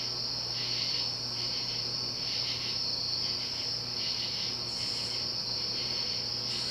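Evergo 'banana' ceiling fan running at a medium-low setting on its solid-state variable-speed control: a steady low motor hum under a continuous high-pitched shrill sound.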